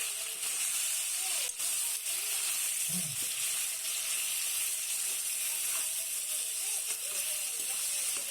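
Chicken meat frying in hot oil in a pan: a steady sizzle throughout, with a single click about a second and a half in.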